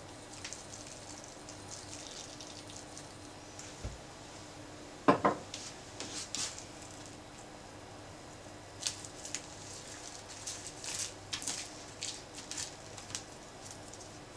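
Light clicks and rustles of a bamboo sushi rolling mat being lifted and rolled over a sushi roll, scattered through the second half. About five seconds in, one sharp clack, the loudest sound.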